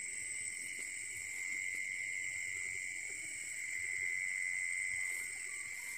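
Steady night-time chorus of insects in the forest, a continuous high chirring at two pitches.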